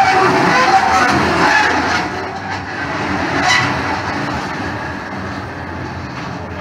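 Ride-on miniature railway locomotive running along its track, its sound fading steadily as it moves away.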